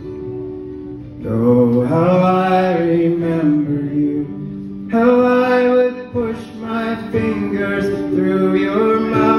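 Acoustic guitar playing under a man's voice singing a wordless melody into the microphone. The voice comes in about a second in, drops out briefly near the middle, then carries on.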